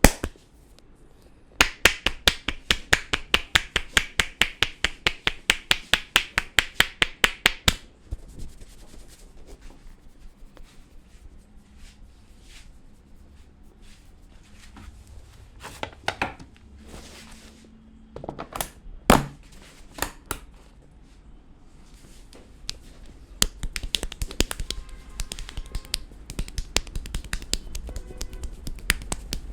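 Barber's scissors clicked rapidly near the head, a run of sharp, even clicks about six a second for about six seconds. Scattered lighter taps follow with one louder knock, then faster, lighter clicking near the end.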